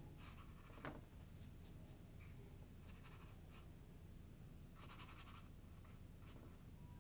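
Watercolour brush dabbing and dragging on rough watercolour paper: faint, scratchy strokes, the longest cluster about five seconds in, with a light tap about a second in.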